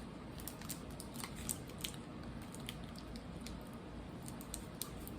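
Faint scattered crunching clicks of someone chewing a Reese's peanut butter cup with potato chip pieces in it.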